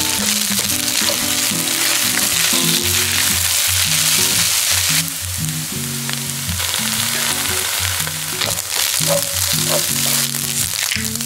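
Egg fried rice sizzling in a hot oiled pan as it is stir-fried with a spatula; the sizzle eases a little about five seconds in.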